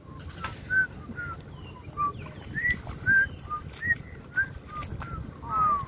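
Birds chirping around a marsh: many short chirps, two or three a second at varying pitches, over low sloshing from people wading in shallow water.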